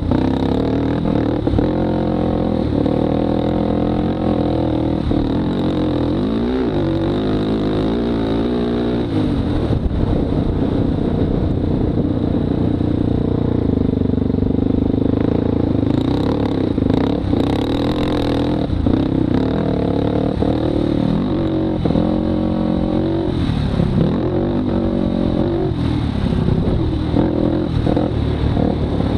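Polaris Predator 500 ATV's single-cylinder four-stroke engine running hard around a dirt track, its pitch rising and falling again and again as the rider throttles up on the straights and backs off into the turns.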